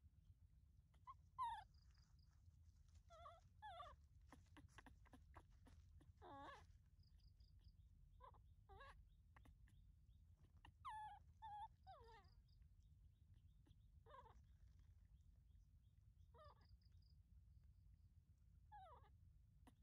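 Baby macaque giving short, faint cries that fall in pitch, one every second or two, with a few soft clicks around four to six seconds in.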